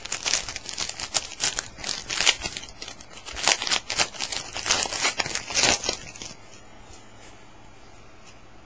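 A 2007-08 Topps Stadium Club trading-card pack wrapper torn open and crinkled by hand, with a quick, irregular crackling that stops about six seconds in.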